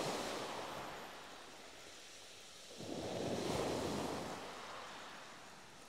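Small waves breaking on a shingle beach. One wash fades away, then another wave breaks sharply about three seconds in and fades off again.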